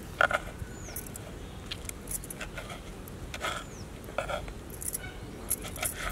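Kitchen knife slicing a tomato on a wooden cutting board: a string of short, irregular taps as the blade cuts through and strikes the board.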